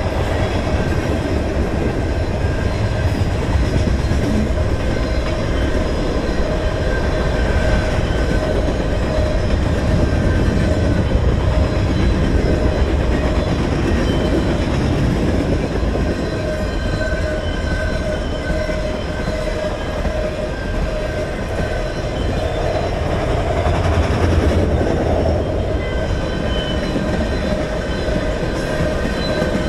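BNSF freight train's cars rolling past at speed: a steady rumble and clatter of steel wheels on rail. Thin ringing tones from the wheels come and go over it.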